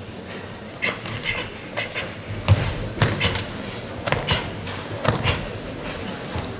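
Karate kata techniques: a series of about ten sharp snaps and thumps, often in quick pairs, from the gi cracking and bare feet striking foam mats, the loudest about two and a half seconds in, over a low hall murmur.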